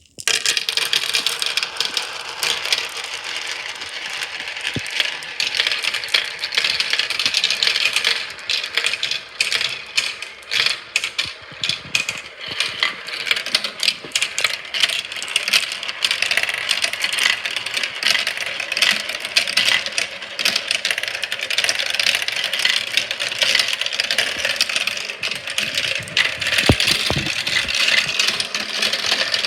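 Marbles rolling and clicking along a marble run: a continuous rattling clatter of many small hard impacts.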